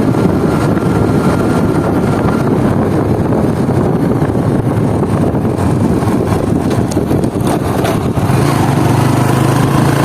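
Motorcycle running on the move, a loud, steady, dense rumble; a steadier low engine hum comes up about eight seconds in.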